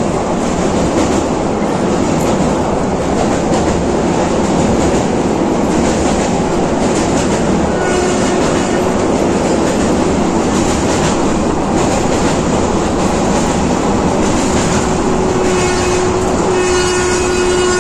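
Passenger train running along the track: a loud, steady rumble and rattle of the wheels and carriages, with a faint thin tone coming in briefly in the middle and again near the end.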